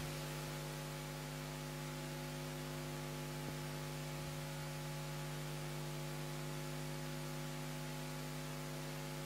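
Steady electrical mains hum in the recording, a buzz made of several even tones, under a layer of hiss.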